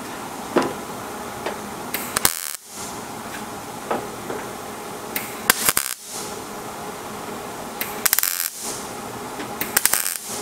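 Millermatic 141 MIG welder laying short tack welds on thin automotive sheet metal: four brief bursts of arc crackle, each about half a second, a couple of seconds apart. The tacks overlap and build up into a continuous seam weld.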